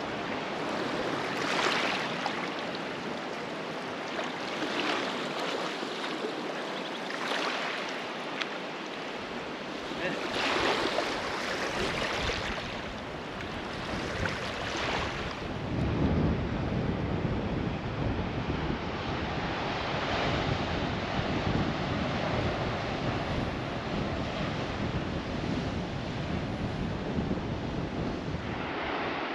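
Ocean surf washing in on a beach, swelling every couple of seconds, with wind. About halfway through, wind starts buffeting the microphone with a low rumble under the surf.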